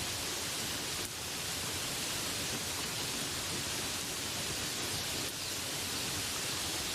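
Steady rain falling, an even hiss with no birds standing out.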